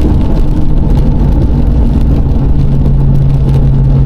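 A car driving: steady engine hum over a loud road rumble.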